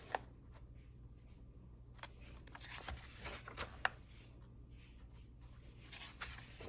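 Pages of an Amazon-printed paperback coloring book being turned and pressed flat by hand: soft paper rustling with a few short sharp clicks, the loudest just under four seconds in.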